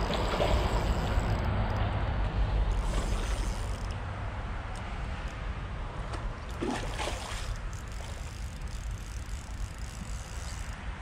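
Wind rumbling on the microphone, with brief splashes from a hooked carp fighting at the surface, a few seconds in and again near the middle.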